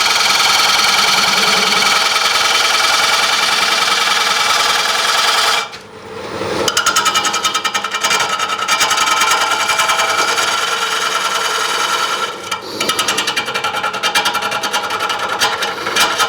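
A gouge cutting a spinning green-wood bowl blank on a wood lathe: a steady continuous cut for about five and a half seconds, a brief break, then a rapid rattling, interrupted cut as the tool strikes the high spots of a blank that is not yet running true.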